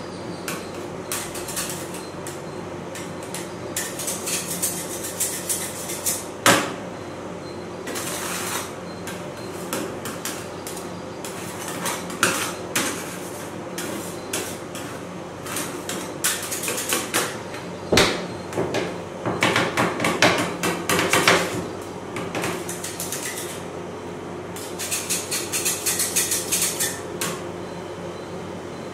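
Two metal spatulas chopping and scraping sapodilla ice cream mix on a frozen steel cold plate: bursts of rapid scraping and tapping, with a couple of sharp clanks, over a steady hum.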